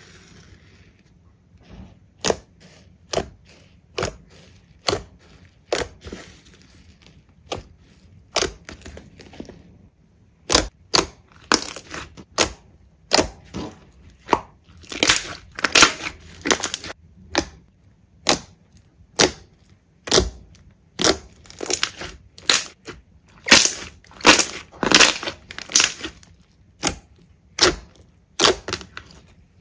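Hands squeezing and poking slime, making sharp popping clicks. The pops come about once a second at first, then faster and in clusters from about a third of the way in.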